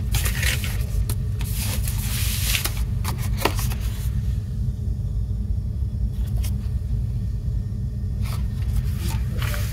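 Paper tickets being handled: rustling and light scrapes of paper and card in the first few seconds and again near the end, quieter in between. All of it sits over a steady low rumble.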